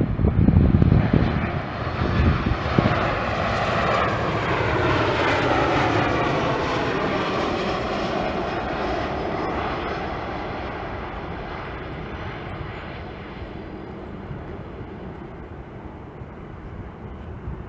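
Boeing 737 MAX 9's CFM LEAP-1B turbofan engines on final approach as the jet passes close by. The low roar is loud at first, then an engine whine falls steadily in pitch as the plane goes past, and the sound fades away over the last several seconds.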